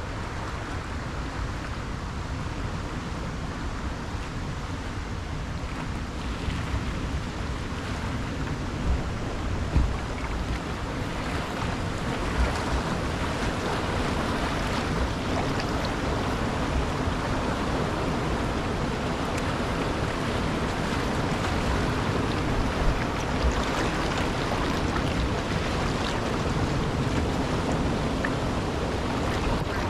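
Whitewater rapids rushing over rock, getting louder partway through as the canoe draws close, with wind buffeting the microphone and a few brief low thumps.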